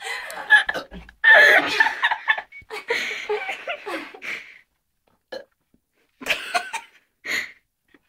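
Loud, drawn-out burps one after another, then after a short pause a few shorter burps near the end.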